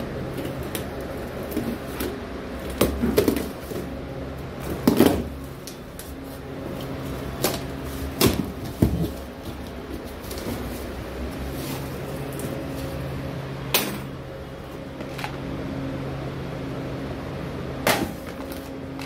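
Cardboard shipping carton being cut open with a box cutter and its flaps pulled back, then plastic supplement tubs and foil pouches inside being handled, giving irregular scrapes, rustles and knocks. A steady electrical hum runs underneath.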